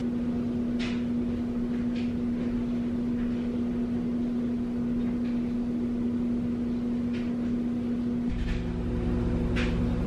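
Steady hum of a kitchen appliance, with a few light clicks and scrapes of a knife spreading cream cheese on bread. The hum changes pitch about eight seconds in.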